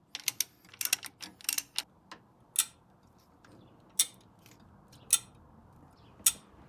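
Ratchet wrench tightening the small bolt and nuts on a transmission mount: a quick run of clicks in the first second and a half, then single clicks every second or so.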